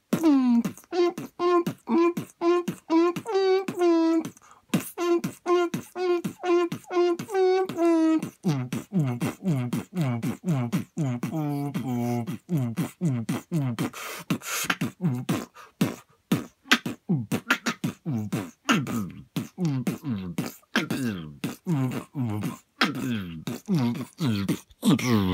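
House-music beatbox, all made by mouth. It opens with a pitched, synth-like vocal note pulsing about twice a second, then from about eight seconds in changes to a lower bass line mixed with sharp clicks and snare-like hits.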